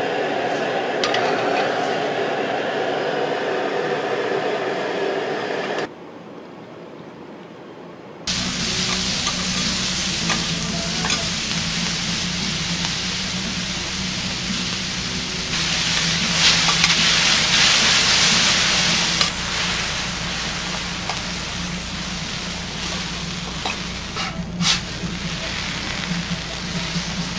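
Food cooking in a Korean street kitchen: a noodle sauce bubbling in a wok over a gas burner, then noodles and shrimp sizzling on a flat steel griddle over a steady low hum. The sizzling gets louder for a few seconds about halfway through, and a few sharp clacks come near the end.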